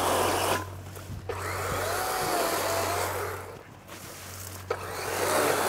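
Dry weeds and brush rustling and crackling as a person pushes through dense overgrowth on foot, coming in three long swells.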